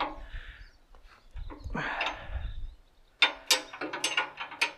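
Hand tools on the loader-frame bolts: a scraping rustle, then a quick run of sharp metallic clicks and clinks in the last second and a half.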